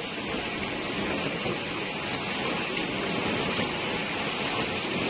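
Steady, even hiss of factory machinery running, with no distinct strokes or rhythm.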